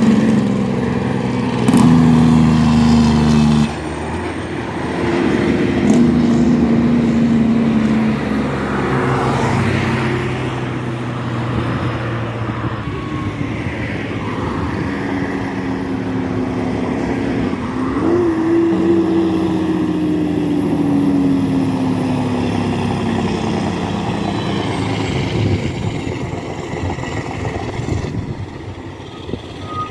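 Highway traffic passing close by: cars and heavy diesel trucks driving past, their engine notes rising and falling as each goes by. Loudest about two seconds in, with another engine note rising then falling off around the middle.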